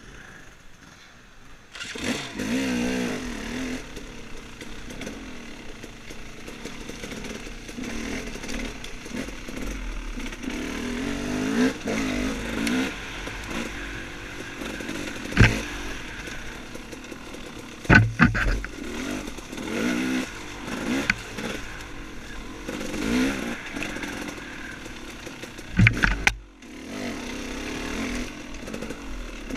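Off-road dirt bike engine revving up and down as it is ridden over rough trail, coming in about two seconds in. Several sharp knocks stand out, the loudest about halfway through and near the end.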